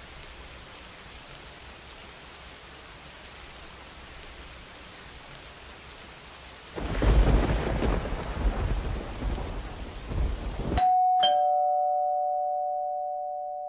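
Steady rain hiss, then a rumble of thunder about seven seconds in that lasts about four seconds. Near the end a two-note chime, the second note lower, rings out like a doorbell ding-dong and slowly fades.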